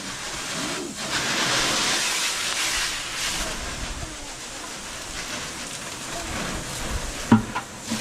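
Steady hiss of water spraying from a hose, swelling and fading as the stream moves, with a brief sharp knock near the end.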